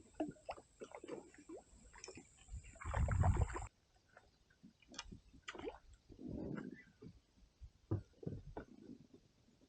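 Scattered knocks and clicks with water sloshing against a kayak, with a few low rumbling bumps, the loudest about three seconds in.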